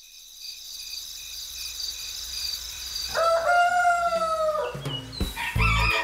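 A rooster crowing once, a single long call that rises, holds and falls away, heard as a wake-up cue over a faint high trill. Cheerful music with a bass beat starts near the end.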